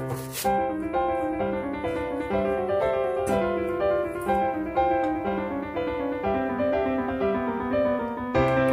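Background piano music, a gentle melody of held notes.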